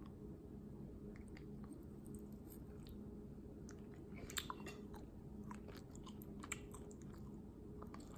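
A person chewing a mouthful of food close to the microphone: faint, irregular crunches and wet clicks, the loudest a little past the middle.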